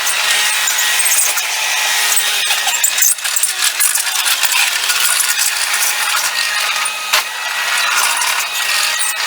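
Mustang MTL25 compact track loader at work, its sound sped up along with the footage: a dense, steady clattering noise full of clicks, with hardly any low rumble.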